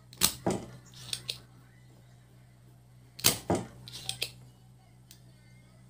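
Spring-loaded desoldering pump (solder sucker) firing on the solder joints of a circuit board. Each firing gives a pair of sharp snaps about a quarter second apart, followed by lighter clicks, and this happens twice about three seconds apart as a component is desoldered.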